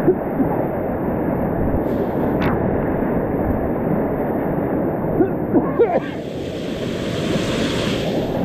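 Whitewater rapids rushing and splashing around a kayak, close to the microphone, with wind and spray buffeting it. A few sharp splashes come about five and a half seconds in, and a brighter hiss from about six seconds in.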